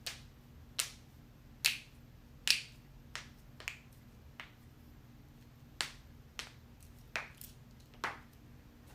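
A series of sharp joint cracks and pops, about a dozen at irregular intervals, some much louder than others, over a faint steady low hum.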